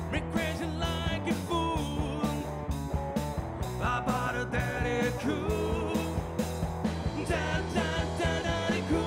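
A rock band playing live: drum kit keeping a steady beat under electric bass and electric guitar, with a wavering lead melody over the top.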